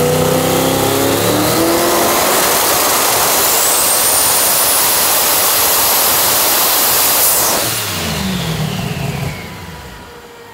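Pro Mod drag car launching and making a full-throttle pass. The engine revs up, then runs at a loud, steady roar with a high whine that climbs in pitch. About eight seconds in, the roar drops away with a falling pitch and fades.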